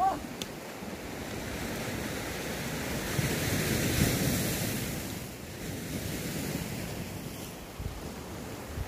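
Sea waves washing ashore, one surge swelling about three to four seconds in and then ebbing, with wind buffeting the microphone.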